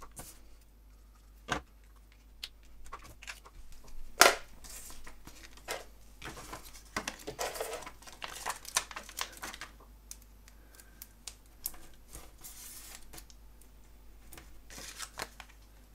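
Paper and cardstock pieces being handled and pressed onto a card: scattered light taps and short rustles. The sharpest tap comes about four seconds in.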